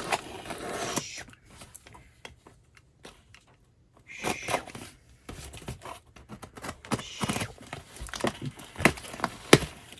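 Product packaging being torn and crinkled open by hand, with rustling and short clicks and snaps. There is a brief quiet spell about three seconds in.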